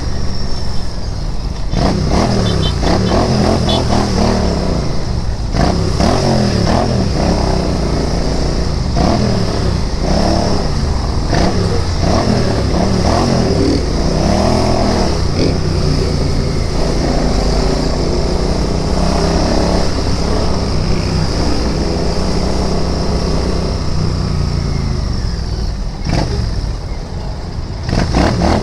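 Royal Enfield Interceptor 650's 648 cc parallel-twin engine running while riding, its pitch rising and falling as the throttle opens and closes. The engine drops off briefly near the end, then picks up again.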